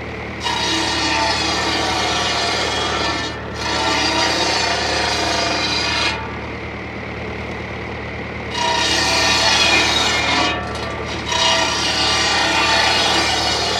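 Tractor-driven circular saw cutting wood in two long spells, starting about half a second in and about eight and a half seconds in, each briefly broken midway, over the steady drone of the tractor's engine.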